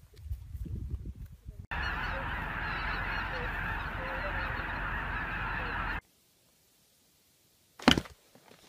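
A large flock of geese calling in flight: a dense clamour of many overlapping honks that starts suddenly about two seconds in and cuts off about four seconds later. A brief sharp sound follows near the end.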